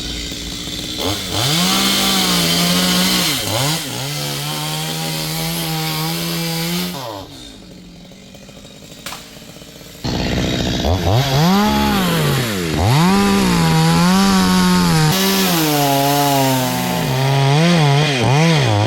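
Two-stroke Stihl chainsaw cutting wood, revving up and falling back again and again under load. It drops away for about three seconds midway, then comes back suddenly at full revs and goes on cutting.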